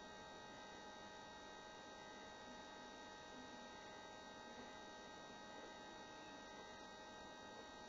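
Near silence: faint steady electrical hum with a low hiss of room tone.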